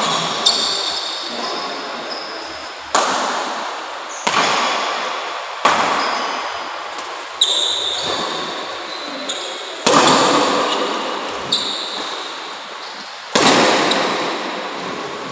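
Badminton rackets striking a shuttlecock in a fast doubles rally, a sharp crack every one to two seconds, each echoing through the hall. Short high squeaks of court shoes on the floor come between the hits.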